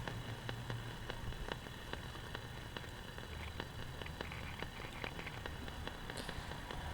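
Faint AM radio static: a steady hiss scattered with small crackles, with no beat whistle heard, the sign that the Panasonic R-111's local oscillator is not running.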